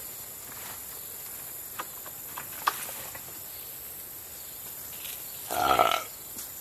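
Steady high-pitched drone of insects such as crickets in summer woodland, with a couple of light knocks and a brief, louder pitched sound about five and a half seconds in.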